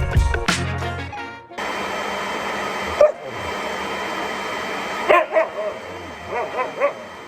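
Background music that stops about a second in, followed by a steady rushing noise and, from about five seconds in, a dog's short barks and yips.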